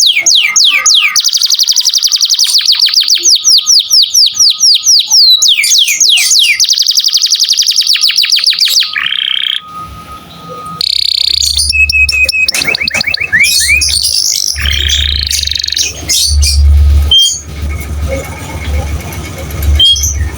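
Domestic canary singing: long rolling trills of fast repeated notes, then shorter broken phrases and chirps from about halfway, with a low rumble underneath.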